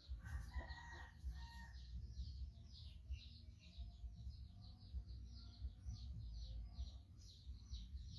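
Small birds chirping rapidly and without a break, with a rooster crowing once about half a second in, its call lasting over a second, over a low rumble.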